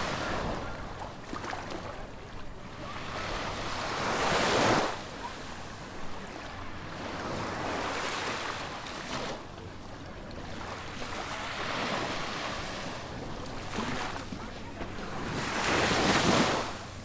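Small sea waves breaking and washing up a sandy beach, the surf swelling and falling. The loudest breaks come about five seconds in and again near the end, each cutting off sharply.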